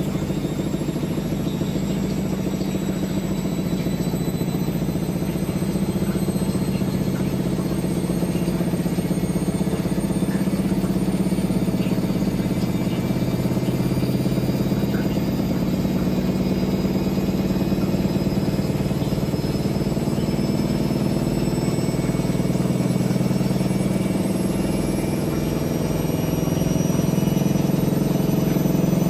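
Siemens Siwamat XS 1060 front-loading washing machine spinning: a steady motor and drum hum with a faint high whine that slowly climbs in pitch.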